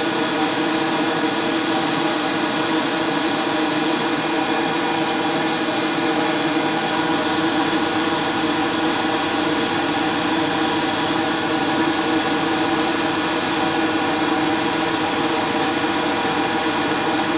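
Airbrush spraying paint onto a scale-model car body, a steady hiss of air over a constant motor hum, with the hiss thinning briefly a few times as the trigger is eased.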